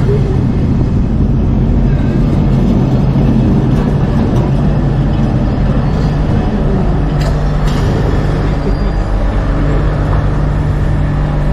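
Lisbon electric tram running with a steady low hum and rumble. The hum shifts slightly higher about six seconds in, and two sharp clicks follow about a second later.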